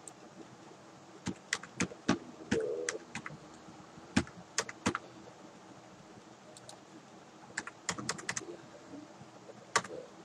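Computer keyboard typing: short runs of key clicks in a few small clusters, with pauses between them.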